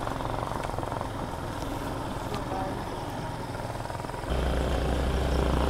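Single-cylinder motorcycle engine running as the bike is ridden, a steady low drone. About four seconds in the sound steps up suddenly and gets louder, with a heavy low rumble.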